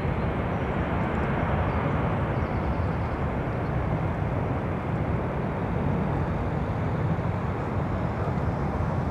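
Boeing 747-200F freighter's four jet engines at takeoff thrust as it climbs out after lift-off: a steady, deep jet noise.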